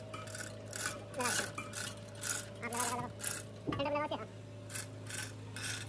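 Steel lifting chains clinking and scraping against each other and the radiator's steel frame in a string of short rattles as a dozer radiator is shifted on its chains, over a steady low hum.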